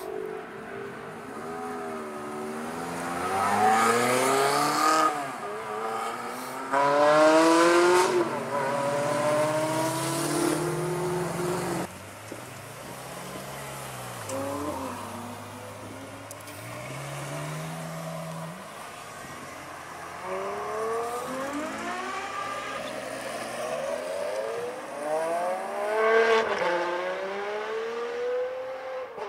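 Ferrari sports car exhausts in a string of short takes: engines revving and accelerating away, the engine note climbing and dropping back through the gears several times. The loudest pulls come a few seconds in, about a quarter of the way in, and near the end.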